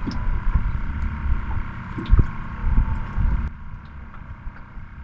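A steady mechanical hum, typical of a boat motor, with wind buffeting the microphone and a couple of short knocks, one about two seconds in. The hum's higher part drops away about three and a half seconds in.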